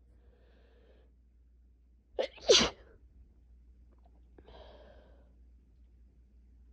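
A loud sneeze from a person with a head cold about two seconds in: a short catch, then the full sneeze. A faint in-breath comes before it and a softer breath follows.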